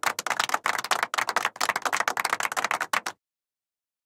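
Cartoon sound effect of fast, irregular tapping that cuts off suddenly about three seconds in, followed by dead silence.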